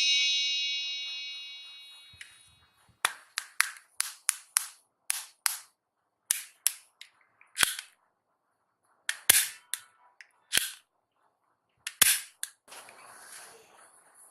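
A bright chime fades out over the first two seconds. Then a plastic toy gun clicks and snaps about twenty times at uneven spacing, with a faint rattle near the end.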